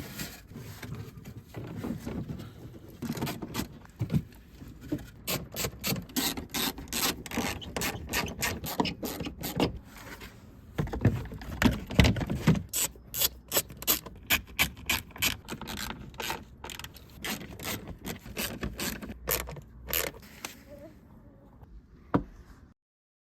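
Hand tools on the car: a ratchet wrench clicking in short, irregular runs, with some scraping of metal. The clicking stops abruptly near the end.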